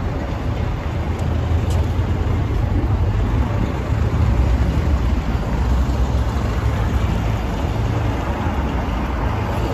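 Street traffic: the steady engine noise of passing vehicles, including a garbage truck driving by, with no single event standing out.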